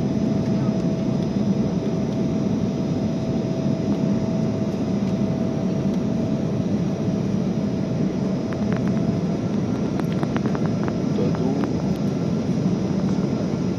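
Steady cabin noise of a jet airliner in flight, heard from a window seat. The low, even noise of the engines and the air rushing past the fuselage carries a faint whine that fades out about two-thirds of the way through, and a few light clicks come near the end.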